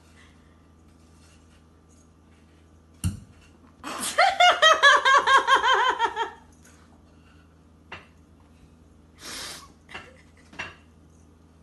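A burst of high-pitched laughter, about a dozen quick pulses that fall in pitch over two seconds, after a single sharp knock. A short hiss follows later.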